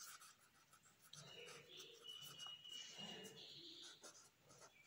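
Faint scratching of a pen writing on notebook paper.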